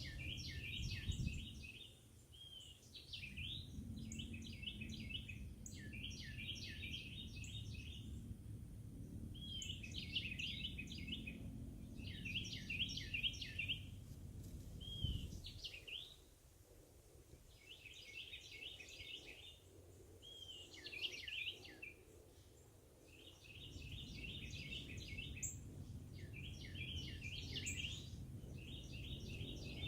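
A songbird singing over and over: phrases of quick repeated notes, each about two seconds long, a second or two apart, with a few single slurred notes between them. A low rumble runs underneath and drops away for several seconds midway.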